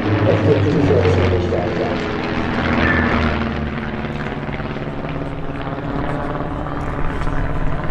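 Two single-engine propeller aerobatic planes flying over in close formation, their engines droning steadily. The drone is loudest in the first couple of seconds and eases off a little after that.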